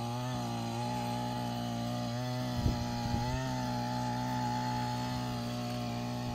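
Takyo TK3P earth auger's single-cylinder two-stroke engine running steadily under load as its bit drills into the soil, with a brief knock about two and a half seconds in.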